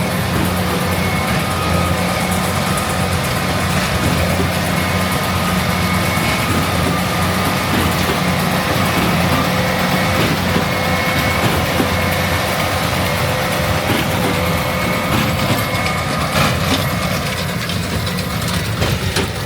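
Diesel engines of heavy farm machinery running steadily, a continuous drone with a few faint steady whining tones above it, easing off a little near the end.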